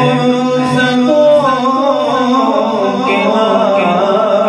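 A man singing an Urdu naat solo into a microphone, without instruments, drawing out long notes that bend slowly in pitch.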